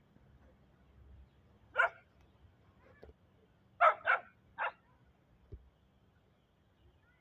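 Small dogs barking in play while they tussle: one sharp bark about two seconds in, then a quick run of three barks a couple of seconds later.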